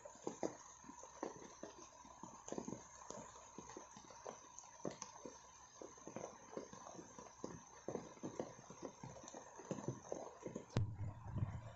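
Raindrops falling on large taro leaves and wet ground, an irregular patter of soft drip knocks over a steady high hiss. About a second before the end the hiss cuts off and a low hum takes over.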